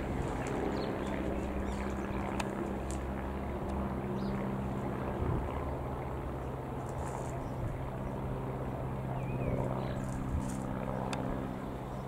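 A 1946 Aeronca 11AC Chief's single piston engine and propeller drone steadily as the light aircraft passes low overhead.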